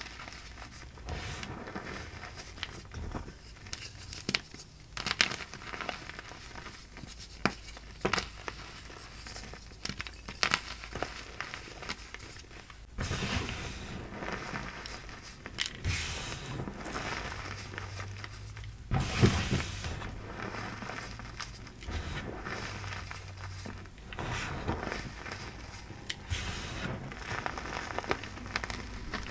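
Hands squeezing and crushing heaps of powdered gym chalk, a dense crunchy crackling as the powder and small lumps compact and crumble between the fingers. It gets somewhat louder about halfway through, with the sharpest crunch a few seconds later.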